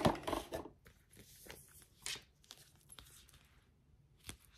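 Paper and card packaging being handled: a loud rustling crackle at the start, then a few soft rustles and ticks as the instruction card is pulled out and held.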